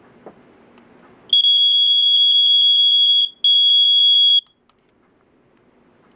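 First Alert SA120 smoke alarm sounding its test alarm through its older-style horn: one steady high-pitched tone for about two seconds, a brief break, then about a second more before it stops.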